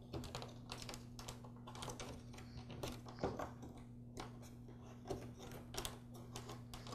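Faint, irregular small clicks and taps of a plastic trimmer handle being handled as the switch and its wires are pressed into the handle's tabs, over a steady low hum.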